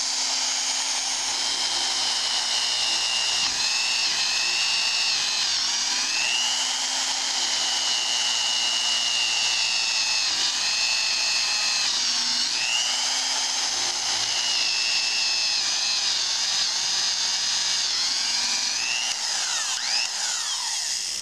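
Old Black & Decker 1/4-inch electric drill, freshly cleaned and greased, running and boring into a block of wood with a steady high whine. The pitch dips briefly a few times as the bit bites and loads the motor.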